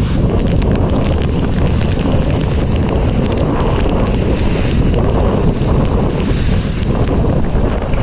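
Strong, gusty thunderstorm wind blasting the phone's microphone with a loud, steady low rumble, over the hiss and patter of a heavy downpour.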